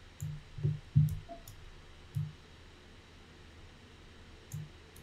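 Computer mouse button clicking: several separate clicks in the first two seconds and one more near the end.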